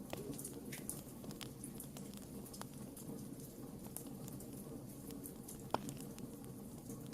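Wood fire burning in a fireplace: scattered crackles and small pops of burning logs over a steady low background, with one sharper, louder pop about three-quarters of the way through.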